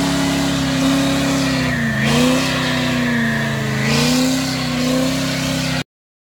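Ford F-250 Super Duty diesel pickup doing a burnout: the engine is held at high revs with the rear tyres spinning, the pitch dipping briefly twice. The sound cuts off abruptly near the end.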